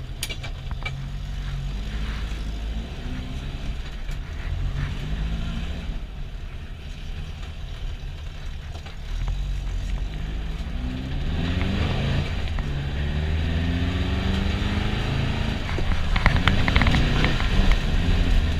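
VW Beetle baja bug's 1641 cc air-cooled flat-four engine, heard from inside the cabin, revving up and down through the gears while driven hard off-road. About ten seconds in the pitch climbs in repeated sweeps. Near the end it pulls louder, with a rapid run of clicks and knocks.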